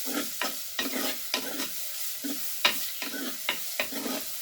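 Sliced onions frying in hot coconut oil, sizzling steadily, while a spatula stirs and scrapes the pan about two to three strokes a second. The onions are at the well-wilted stage.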